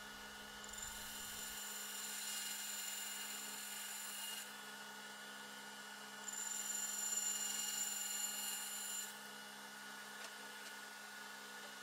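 Bandsaw running faintly with a steady hum while its blade cuts through red oak plywood. The cutting sound rises twice, for about three seconds each time.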